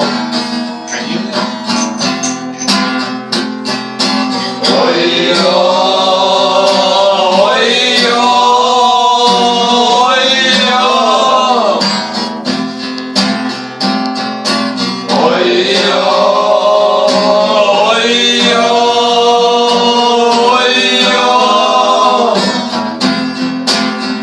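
Music: acoustic guitar strumming, with a slow melody of long held notes over it in two phrases, as an instrumental break between verses of a song.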